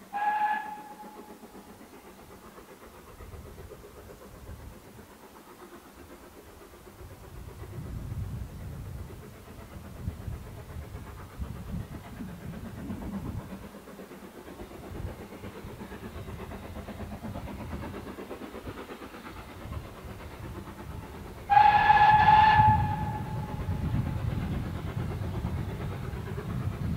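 Steam locomotive BR Standard Class 2MT No. 78018 approaching with a train. Its whistle gives a short blast right at the start and a longer, louder blast of about a second near the end. In between, the low rumble of the working engine and train builds as it draws nearer.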